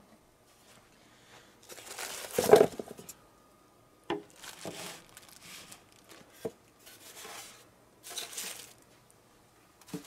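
Packing material rustling and crinkling in several bursts as a box is unpacked, loudest about two and a half seconds in, with a few light knocks in between.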